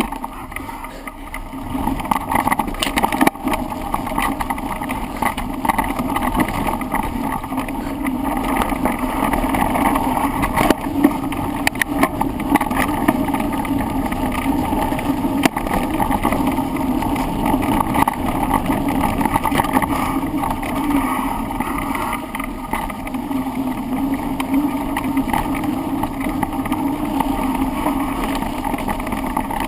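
Mountain bike descending a rough trail: a steady rumble and rattle of tyres and frame with scattered sharp knocks from bumps, picked up by a camera mounted on the handlebars.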